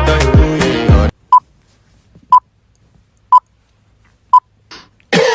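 Afrobeat song cuts off abruptly about a second in, followed by four short, identical electronic beeps, evenly spaced one a second.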